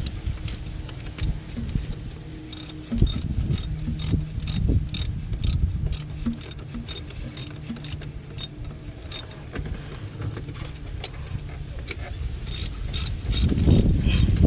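Ratchet wrench clicking in runs as bolts are turned in by hand, about three clicks a second, with a busier run near the end.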